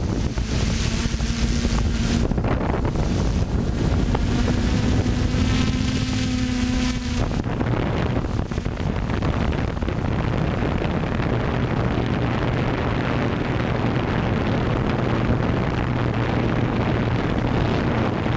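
Quadcopter drone's electric motors and propellers humming in flight, heard through the onboard camera with wind rushing over the microphone. The hum shifts pitch in the first few seconds, then settles into a lower steady hum about seven seconds in.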